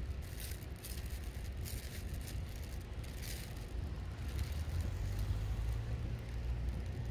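Seaside ambience: sea water washing against the shore over a steady low rumble, with irregular hissing surges.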